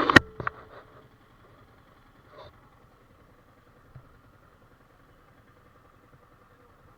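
Several sharp clicks and knocks in the first second, then a faint steady hum of a motorcycle engine idling, with a soft knock about four seconds in.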